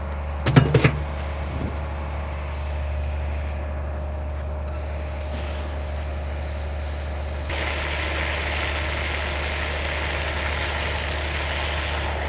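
A large diesel engine idles steadily under everything. About half a second in, a few knocks sound as a burnt metal drive enclosure is dropped into a steel excavator bucket. From about five seconds in, a water hose sprays onto the drive and bucket with a steady hiss that grows much louder from about seven and a half seconds.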